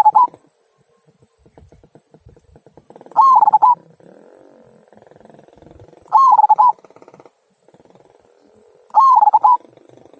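Local zebra dove (perkutut) with a 'kung' voice, cooing. Short rolling coos of about half a second come roughly every three seconds, three full ones plus the tail of another at the very start.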